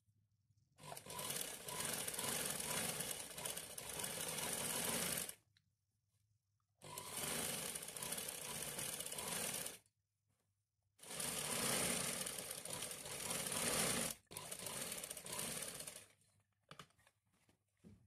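Motor-driven domestic sewing machine stitching a salwar's folded waistband, running in four spells of a few seconds each that start and stop abruptly.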